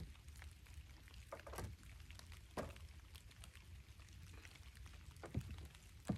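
Light rain pattering on a pond and wooden dock, with many scattered drops ticking. A few dull knocks on the dock boards stand out, about a second and a half in, near the middle and near the end.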